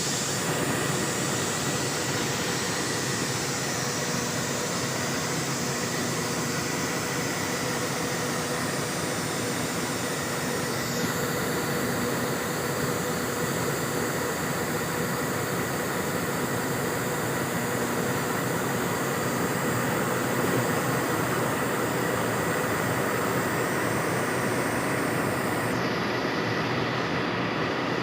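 CC 300 diesel-hydraulic locomotive engine running steadily, a continuous drone with a few steady tones. The high hiss shifts about eleven seconds in and falls away near the end.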